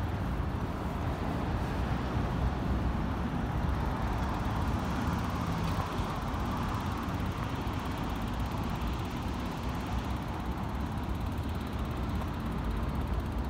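Steady outdoor noise of city traffic, with a low rumble of wind on the microphone.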